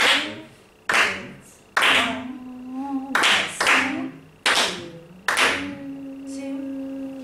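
Hand claps beating out the rhythm of a song passage, seven claps at uneven spacing. A held low note sounds under some of them and carries on through the last seconds.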